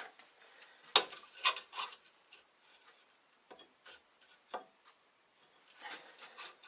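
Scattered light clicks and knocks of a lathe scraper and grinder tool rest being handled, loudest about a second and a second and a half in, with quiet between.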